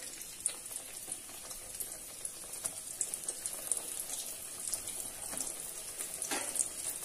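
Elephant foot yam fritters sizzling and crackling in shallow hot oil in a steel wok: a steady spitting hiss full of tiny pops. A soft knock sounds about six seconds in.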